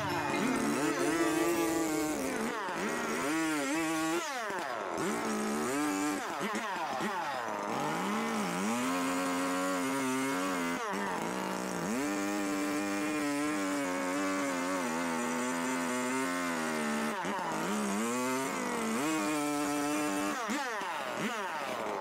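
Gas chainsaw cutting into a wooden log to rough out a carving, its engine held high and repeatedly dipping and climbing back in pitch as the throttle is eased and reopened in the cuts.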